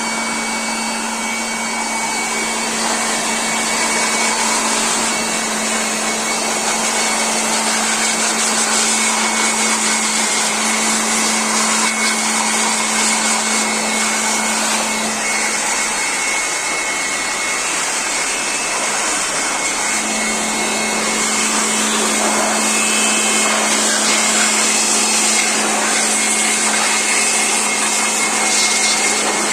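Electric air blower running steadily with a whine from its motor. Its low hum fades for a few seconds midway, then returns.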